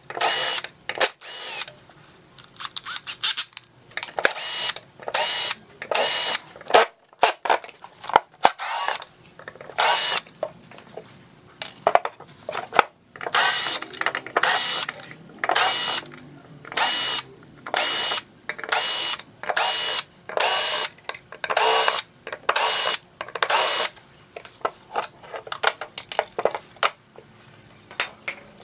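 Cordless drill-driver whirring in many short trigger bursts, about one a second, backing out the screws that hold power transistors to an amplifier's aluminium heat sink. The bursts stop near the end.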